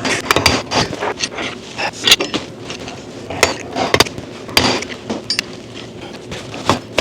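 Irregular metallic taps, knocks and scrapes of a screwdriver being driven and levered through a valve in the vacuum chamber of a Carter dual action fuel pump to pop the valve out.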